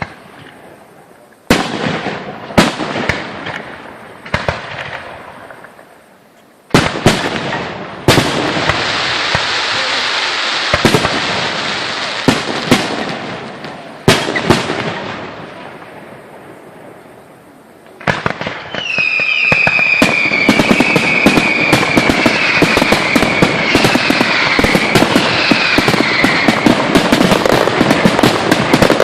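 Aerial fireworks: single shells bursting with sharp bangs, each dying away in a long rumbling echo, then about two-thirds of the way in a dense, continuous barrage of crackling pops with high whistles sliding slightly down in pitch.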